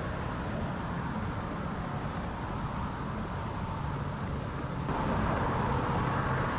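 A steady low engine hum over outdoor background noise, getting louder about five seconds in.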